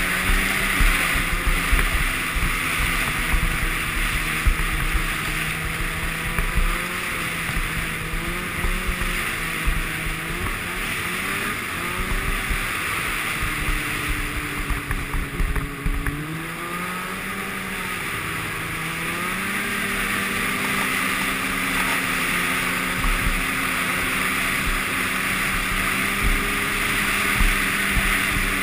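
Arctic Cat Sno Pro 500 snowmobile engine running under throttle at trail speed, heard from on board with wind and track hiss. The engine note drops about halfway through, then climbs back up and holds steady.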